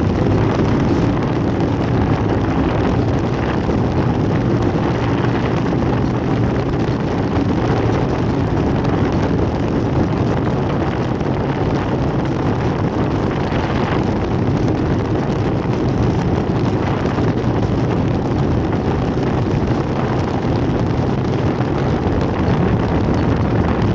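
Off-road race vehicle driven at speed: a steady, loud mix of engine noise and wind on the microphone.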